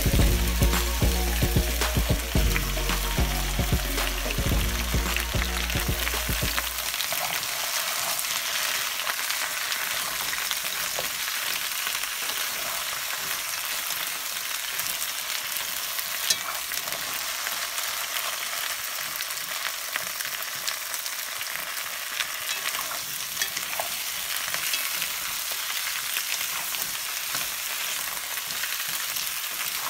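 Potato wedges, carrot sticks and onion sizzling in hot oil in a wok while two wooden spatulas stir and toss them, with small scrapes and taps against the pan. A melody plays underneath for the first several seconds, then stops.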